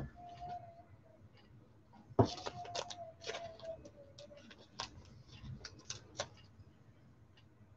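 Faint clicks and rustles of trading cards and their plastic packaging being handled, with a sharper click about two seconds in. A faint thin tone that sags slightly in pitch runs under it twice.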